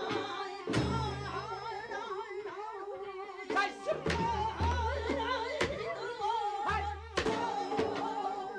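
Jindo ssitgim-gut shaman ritual music: a voice singing with heavy wavering vibrato over janggu hourglass-drum strokes. Some strokes carry a deep low tone that rings for about a second.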